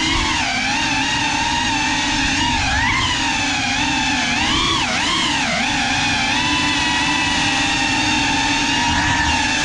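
GEPRC Cinelog 35 cinewhoop FPV drone's motors and propellers whining, the pitch rising and falling with throttle, with two quick dips about halfway through.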